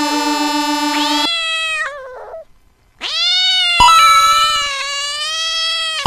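Dubbed cat meows. A meow sounds over a steady held tone that stops about a second in and trails off, then after a short pause a long, drawn-out meow runs from about three seconds in, with a sharp click near four seconds.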